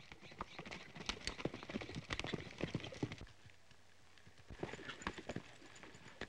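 Horses' hooves galloping on a dirt trail: a dense run of hoofbeats for about three seconds, then a lull and a second, sparser run of hoofbeats as the horses slow and stop.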